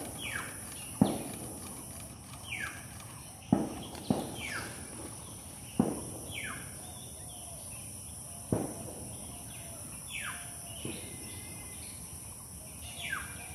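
A bird calls again and again, each call a short falling note, about every two seconds, over a steady high insect drone. Several sharp low knocks come through at uneven intervals.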